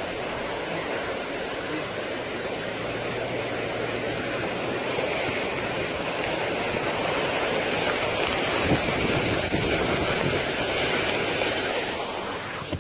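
Fast-flowing floodwater rushing steadily, a continuous roar of moving water.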